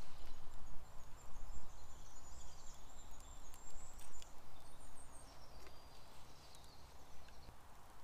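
Woodland ambience: a bird singing thin, high phrases over a steady low rumble, with a few small clicks from sticks and the fish being handled.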